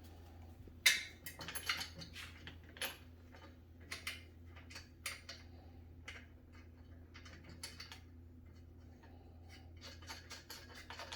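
Light clicks, taps and clatters of small exercise-bike parts and hand tools being handled during assembly. They come irregularly, busiest in the first few seconds, sparser in the middle, and pick up again near the end.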